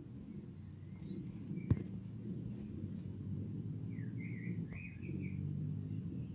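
Chickens in a coop giving a short run of soft, high, wavering chirps about four seconds in, over a low steady rumble. A single sharp click comes a little before two seconds.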